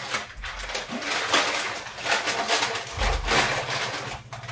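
Plastic wrapper of a Maggi instant-noodle packet crinkling and rustling in quick, irregular crackles as it is handled and opened.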